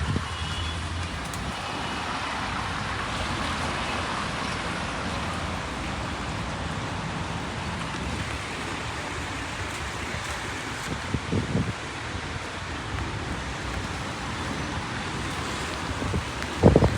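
Steady hiss of rain mixed with the sound of traffic and tyres on a wet road. A few short louder knocks come near the end.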